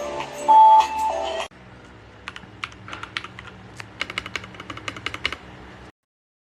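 A short bit of music, then typing on a LANGTU S69 mechanical keyboard: irregular key clicks, a few each second, which stop abruptly into silence near the end.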